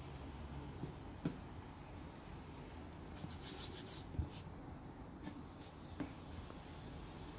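A kitchen knife sawing through the baked crust of a round filled bread on a wooden cutting board: faint scratchy strokes about halfway through, with a few light knocks of the blade and bread on the board.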